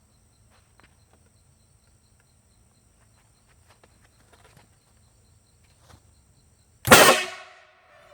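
Electric solenoid PVC air cannon, charged to about 320 psi, firing a foam practice golf ball: one sharp, loud blast about seven seconds in, with a short ringing tail. Crickets chirp steadily in the background.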